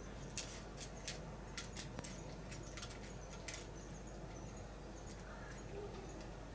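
A cat eating from a small metal dish: irregular soft clicks and crunches of chewing and of food against the dish, most of them in the first three seconds or so.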